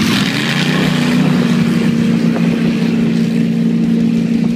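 Two hot-rod drag cars launching side by side off the start line at full throttle, their engines starting loud and sudden and then running on in a steady drone as they race away down the strip.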